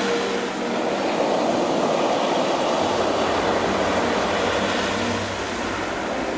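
Sea waves breaking and foaming up a pebble beach: a steady rush of surf. A deeper rumble swells for a couple of seconds in the middle as a wave breaks.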